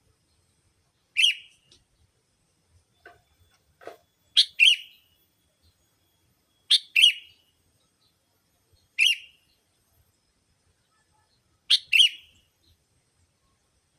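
Sooty-headed bulbul (kutilang) lure calls: short, sharp chirps, some single and some in quick doubles, repeated every two to three seconds, with two faint lower notes around the third and fourth second.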